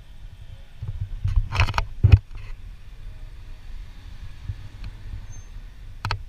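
2019 Volkswagen Jetta GLI's 2.0-litre turbocharged four-cylinder idling with a new aftermarket exhaust, heard from inside the cabin as a steady low rumble. A short cluster of knocks and rustles comes about a second and a half in, and another near the end.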